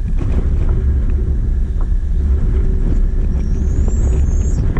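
Wind buffeting the microphone on an open boat: a steady, heavy low rumble. A faint high whistle rises near the end.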